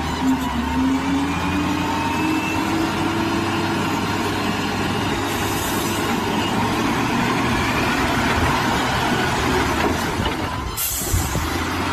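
Wheel loader's diesel engine working under load as it lifts a heavy boulder in its bucket, its pitch climbing over the first few seconds. Two short hisses come about halfway and near the end.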